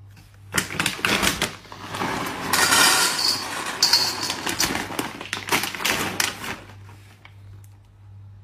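Dry dog kibble poured from a bag into a stainless steel bowl: a rattling clatter of pieces hitting the metal that lasts about six seconds and stops a little before the end.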